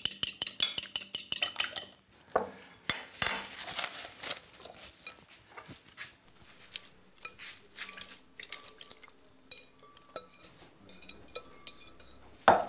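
A fork beating eggs in a glass bowl: rapid, even clicking against the glass for about two seconds. Then scattered clinks and scrapes of a fork against glass bowls as spaghetti is tossed and moved, with one louder knock near the end.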